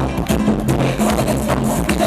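Up-tempo merengue dance music played over the sound system, with a held bass line and a steady run of percussion hits.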